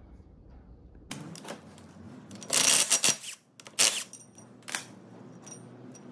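Clanking and scraping of heavy steel parts and tools on the tractor's front planetary hub. One loud clatter comes about two and a half seconds in, then several sharper metallic knocks, a couple of them ringing briefly.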